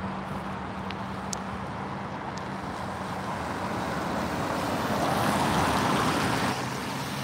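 Cars passing on wet asphalt: tyre hiss swells to a peak about five to six seconds in, then eases, over a steady low hum that fades after the first couple of seconds.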